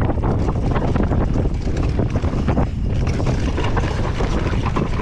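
Wind rushing over the camera microphone as a Vitus Sommet mountain bike rolls fast down loose, rocky singletrack, with tyres crunching over stones and the bike clattering on the rough ground.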